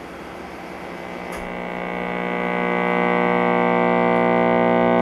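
1949 FADA model 855 AA5 tube radio's speaker humming as the tubes warm up, the steady hum swelling over the first few seconds and then holding level. It is filter capacitor hum, the sign of the set's bad original electrolytic filter capacitor.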